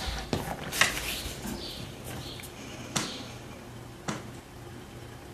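Tarot cards being handled on a wooden table: a handful of sharp clicks and taps, with soft rustling between them as a card is drawn from the deck.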